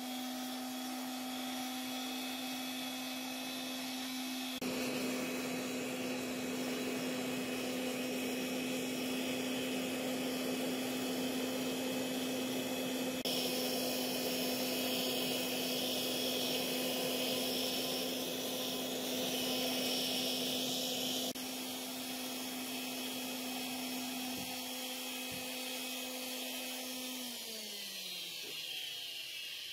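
Homemade gas forge burning steadily: a continuous rushing roar with a constant hum. Near the end the hum slides down in pitch and fades as the forge is shut down.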